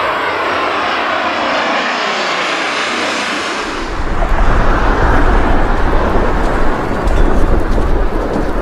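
Jet aircraft flying past: a loud high whine and hiss falling in pitch, giving way about four seconds in to a louder, deep rumble.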